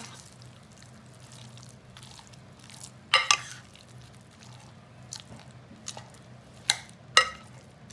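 A metal spoon stirring and mashing baked feta and soft roasted cherry tomatoes in a ceramic baking dish. Several sharp clinks of the spoon against the dish are spread through the stirring.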